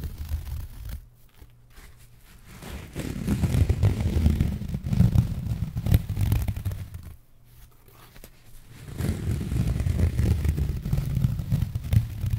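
A thin, translucent white sheet of material is stretched and worked between two hands close to a microphone, giving a deep, muffled rubbing and rustling. It comes in two long stretches of several seconds each, with a short lull between them.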